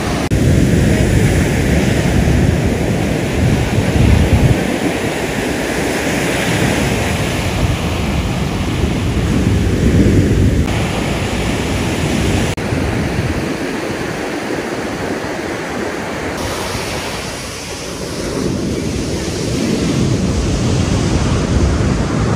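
Ocean surf breaking on a sandy beach, a steady rushing wash of waves, with wind buffeting the microphone in low gusts, heaviest in the first few seconds.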